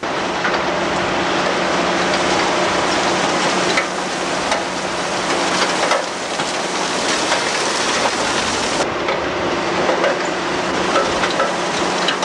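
Potato harvester at work in the field: its conveyors and rollers clatter with potatoes and soil over the steady drone of a tractor engine. The sound changes abruptly about four, six and nine seconds in.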